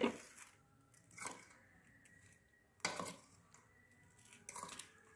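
A spoon stirring paneer cubes through a thick yogurt-and-flour marinade in a steel bowl: a few short, soft wet squelches and scrapes, the loudest at the start and about three seconds in.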